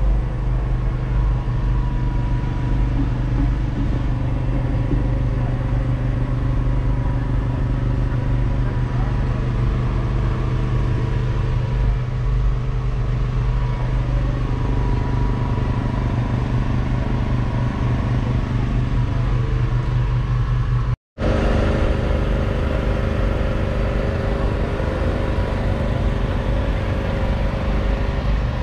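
An engine running steadily at a constant speed: a continuous low drone with an even pitch.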